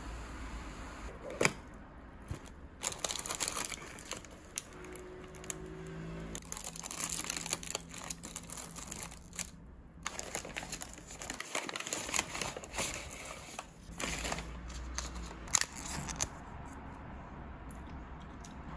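Paper food wrappers and a cardboard takeaway box being handled and opened: repeated crinkling and rustling of paper, with a couple of sharp taps.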